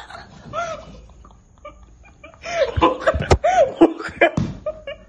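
People laughing: a short chuckle about half a second in, then a loud burst of laughter from about two and a half seconds in that lasts a couple of seconds.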